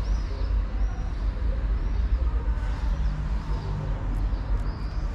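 Steady low rumble of street traffic, with a few faint high chirps over it.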